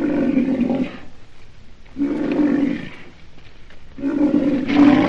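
Rhinoceros calling: three rough, low calls about a second long, spaced about two seconds apart.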